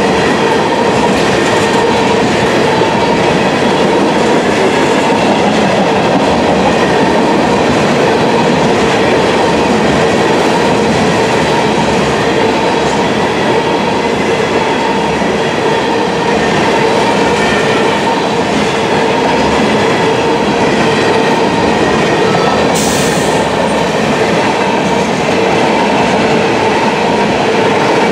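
Railroad tank cars of a freight train rolling steadily past, steel wheels clacking over the rail joints with a steady ringing squeal from the wheels. A short hiss comes about three-quarters of the way through.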